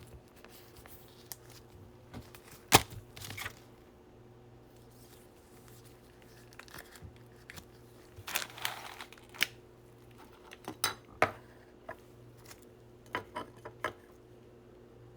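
A trading-card pack wrapper being torn open and the cards handled: a sharp click about three seconds in, a short stretch of tearing a little past the middle, then a run of small clicks and taps.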